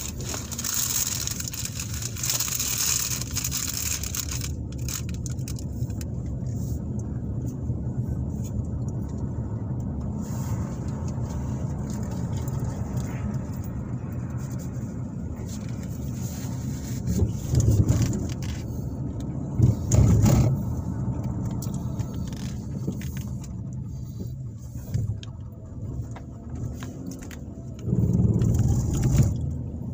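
Car cabin sound while driving: a steady low engine and tyre rumble with scattered small rattles. A hiss fades out about four seconds in, and there are louder low surges at about 17, 20 and 28 seconds in.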